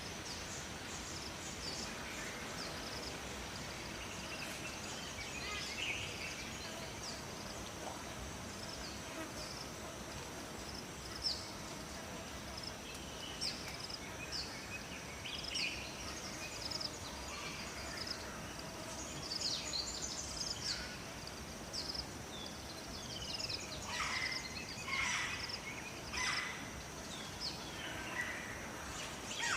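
Steady rush of flowing water under a chorus of small birds chirping and singing, with a thin, steady high-pitched buzz. Louder bird calls come in several quick bunches near the end.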